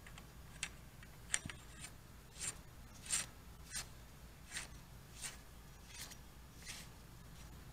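Faint, short metallic scrapes and clicks, about one every 0.7 seconds, as the front sprocket nut of a Harley-Davidson Sportster is spun by hand onto the transmission shaft's left-hand threads and the sprocket shifts on its splines.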